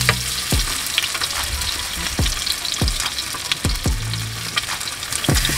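Masala-coated fish frying in hot oil in a shallow pan on a portable gas stove, with a steady sizzle.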